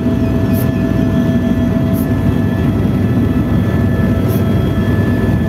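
Helicopter in flight heard from inside its passenger cabin: a loud, steady low rumble from the rotor and turbine, with steady whining tones on top.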